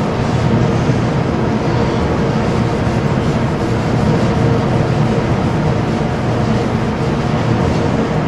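Steady machine drone with a few constant hum tones, running unchanged at an even level.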